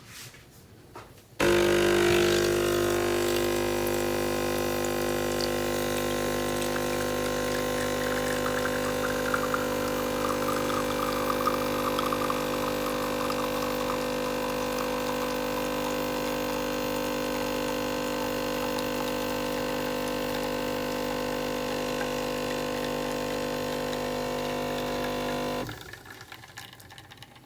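DeLonghi Dedica EC685 espresso machine's vibration pump humming steadily while pulling a double espresso shot. It starts about a second and a half in and cuts off shortly before the end, a shot of about 25 seconds.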